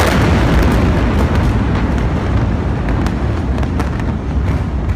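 Loud, deep rumbling from a gas station explosion and the fire that follows it, slowly easing, with sharp cracks and pops scattered through it.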